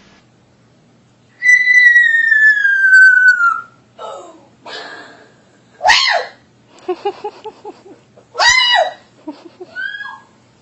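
Pet parrot whistling: one long, clear whistle sliding slowly down in pitch, then a string of short chirps, a quick chattering run and sharp up-and-down squawks.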